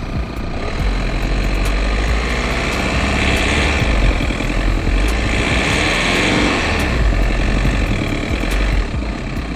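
A vehicle engine running, growing louder in the middle and easing off near the end.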